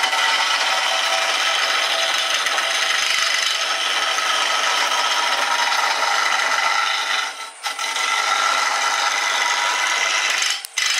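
Woodturning tool cutting a wooden handle blank spinning on a lathe: a steady scraping, rasping cut as the blank is turned down. The cut breaks off briefly about seven and a half seconds in and again near the end.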